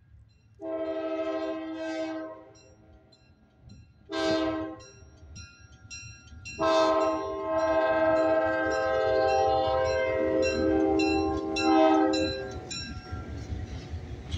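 Diesel locomotive's multi-tone air horn blowing for a grade crossing: a long blast, a short one, then a long blast held about six seconds. A crossing bell rings with steady, evenly spaced dings, and the locomotive's diesel engine rumble and wheel noise grow near the end as it reaches the crossing.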